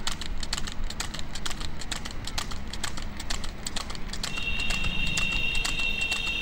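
Water buffalo's hooves clopping on the asphalt as it trots pulling a wooden cart, a few sharp hits a second over a low rumble. About four seconds in, a steady high-pitched tone starts and holds.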